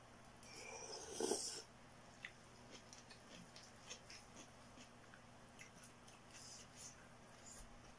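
Noodles slurped in off chopsticks, a short hissing slurp about a second in, followed by faint wet mouth clicks of chewing.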